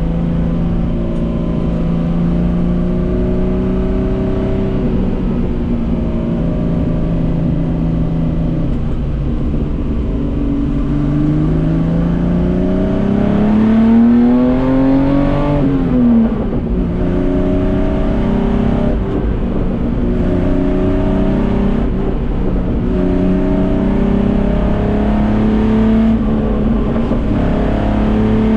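Group C Datsun 240K race car engine running under load, its pitch steady at first, then climbing for about five seconds before dropping sharply about halfway through, followed by several shorter climbs each cut off by a gear change.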